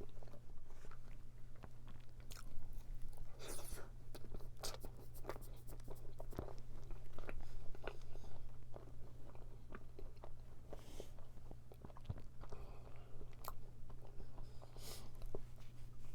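Close-up chewing and biting of a pastry tart: crisp, flaky crust crackling in many small irregular clicks, with a few louder crunchy bites, over a steady low hum.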